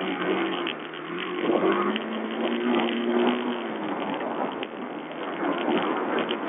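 Sherco 125 four-stroke enduro motorcycle's single-cylinder engine running under way on a rough dirt track, with wind noise and small knocks and rattles from the bumpy ground. The engine note is steady for the first three and a half seconds or so, then is lost under the wind and rattles. It is heard through a low-quality watch camera's microphone.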